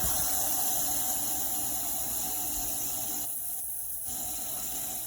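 Pressurised nitrous oxide rushing from a bottle through a hose into a water heater's hot-water line: a steady, loud hiss that eases a little and thins briefly about three seconds in. The gas is blasting out a blockage, thought to be sediment.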